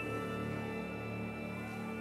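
Chamber ensemble of strings and woodwind playing soft, slowly fading held notes just after a loud high held note breaks off.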